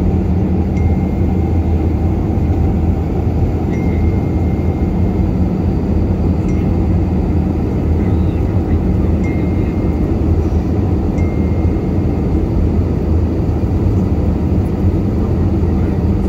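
Steady cabin noise of a jet airliner in descent: the engines and rushing airflow, heavy and low, heard from a seat beside the wing. A faint thin high whistle comes and goes a few times over it.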